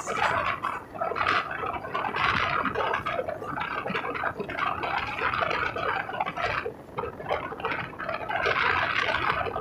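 Running noise of an Indian Railways express passenger train at speed, heard from an open coach doorway: wheels on the rails and rushing air. It swells and eases unevenly, with no clear beat.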